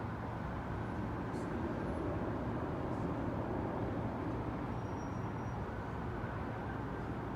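Freight train rolling by with a steady rumble, with a couple of faint ticks and a brief thin high squeal about five seconds in.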